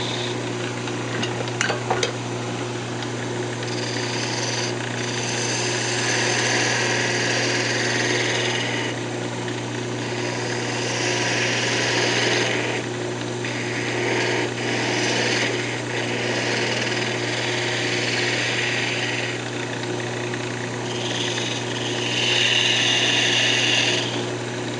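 Wood lathe running with a steady hum while a spindle gouge cuts the spinning cocobolo duck-call blank. The hiss of the cut comes and goes over several passes, loudest near the end.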